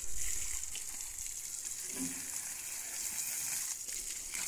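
Water from a garden hose spraying onto a motor hoe (rotary tiller) as it is washed: a steady hiss of spray and splashing.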